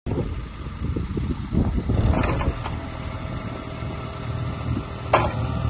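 JCB 8025 ZTS mini excavator's diesel engine running steadily while the arm is worked on the hydraulics, with a few short hissing bursts about two seconds in and a sharp brief one near the end.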